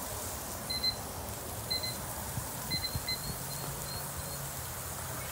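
Short high-pitched electronic beeps, about one a second at first and then coming quicker, over a steady background hiss.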